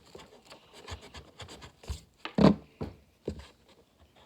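Pencil strokes scratching and rubbing on paper, with a few knocks on the table, the loudest about two and a half seconds in.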